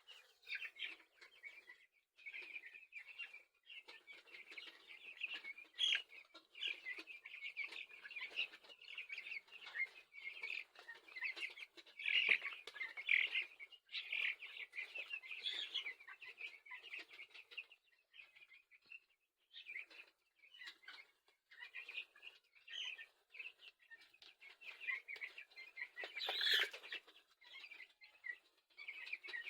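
A flock of two-week-old broiler chicks peeping continuously, many short high chirps overlapping, with one louder sharp sound near the end.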